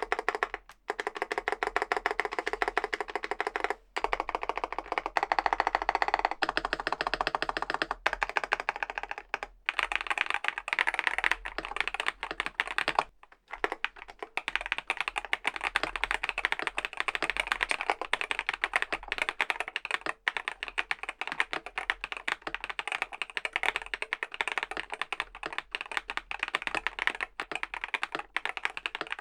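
Typing on a Groovestone (Mstone) mechanical keyboard with Hanui switches: a fast, continuous run of key clacks, broken by a few brief pauses.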